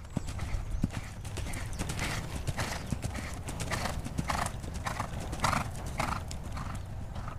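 Horse cantering on sand footing and taking a jump: muffled hoofbeats, with a regular puff of breath nearly twice a second in step with the stride.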